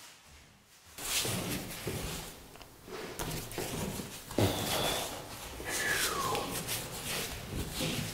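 Paintbrush loaded with paint swishing and rasping in repeated strokes over a plaster wall, starting suddenly about a second in, with a short falling squeak partway through.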